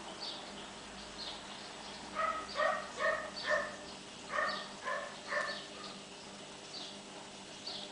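Animal calls: seven short pitched yaps in two groups, four then three, from about two seconds in to past five seconds, over small high chirps that repeat throughout.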